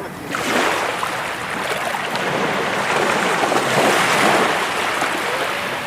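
Sea waves breaking on the shore: a rush of surf surges up just after the start, swells to its loudest about four seconds in, then eases off.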